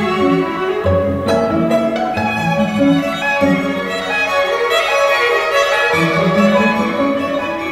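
Recorded string music playing: a violin melody in held notes over lower bowed strings.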